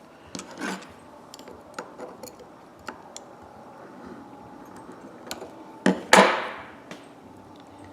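Small metal clicks and taps of a ratchet's parts and hand tools being handled on a bench while a retaining clip is worked into the ratchet head. About six seconds in there is a louder scrape.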